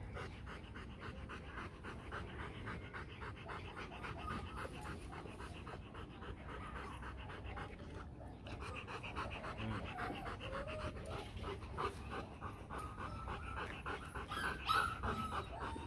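A Rottweiler panting in quick, even breaths, a little louder near the end.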